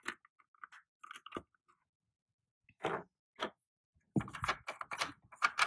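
Small toy food packages being handled and packed into a cardboard box: scattered light taps and rustles, then dense crinkling and rustling from about four seconds in.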